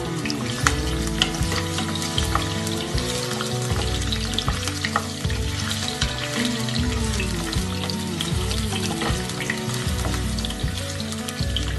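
Drumstick (moringa) pods frying in hot oil in a pot, with steady sizzling and crackling, stirred with a wooden spatula.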